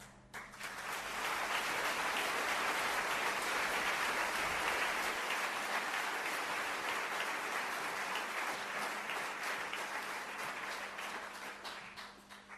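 Audience applauding: the clapping swells up about half a second in, holds steady, and thins out toward the end.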